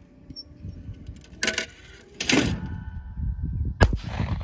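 A single shot from a CZ Teal 28-gauge over-and-under shotgun, a sharp crack near the end with its report ringing out after it. Two shorter, duller noises come a couple of seconds before it.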